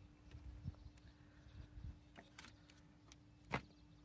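Near silence with a few faint metallic clicks of a screwdriver and a spring hose clamp being handled on a rubber hose, the sharpest about three and a half seconds in, over a faint steady hum.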